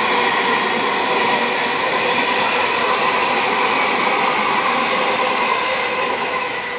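Sydney Waratah double-deck electric train passing close by at speed: a loud rushing rumble of wheels on rail with a steady high whine, easing off slightly near the end as the last car goes by.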